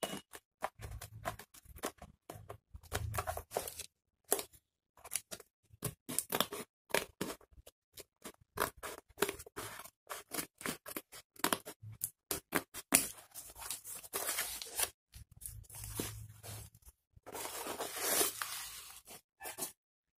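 Scissors snipping and cutting through the packing tape and cardboard of a parcel: an irregular run of short, sharp snips and scrapes, with a longer rustling stretch near the end.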